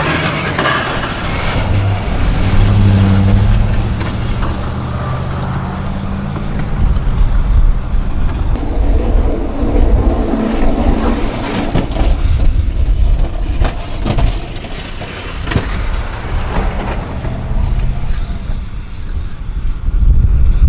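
Truck engine running steadily, its note rising about two to three seconds in, with several sharp knocks or clunks in the second half.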